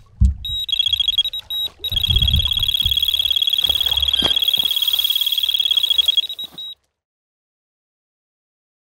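Electronic carp bite alarm sounding a fast, continuous stream of high beeps as line is pulled from the reel: a run, meaning a fish has taken the bait. There are a couple of short breaks near the start and a few low thuds under it, and it cuts off abruptly near the end.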